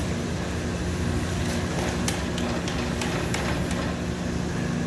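A steady low hum and rumble of kitchen equipment, with water splashing and a few light knocks and clicks as a plastic crate basket is lifted out of a pot of boiling octopus.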